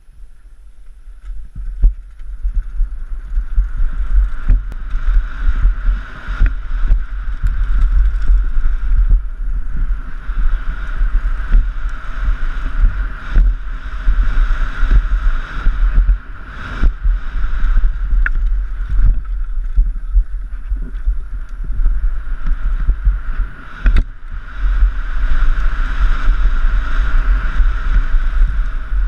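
Downhill mountain bike (Giant Glory) riding fast down a dirt trail, heard from a helmet-mounted GoPro Hero 3 Black: heavy wind buffeting on the microphone and tyres on dirt and gravel, with frequent knocks and rattles from the bike over bumps. It starts quietly and builds within the first couple of seconds as the bike picks up speed.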